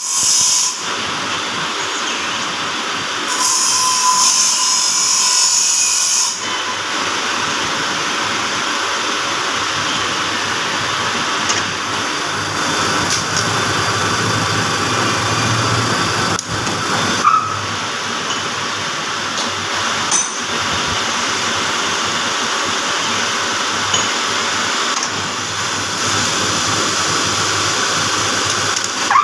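Metal-turning lathe running steadily while machining a bush, with a harsher, higher-pitched stretch about three to six seconds in and a couple of sharp clicks about two-thirds of the way through.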